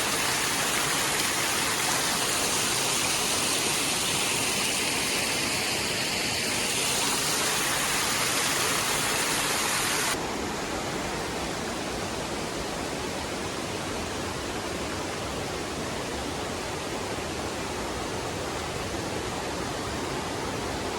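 Steady rush of water in a mountain gorge, a constant hiss without any rhythm. About ten seconds in it drops suddenly to a duller, slightly quieter rush.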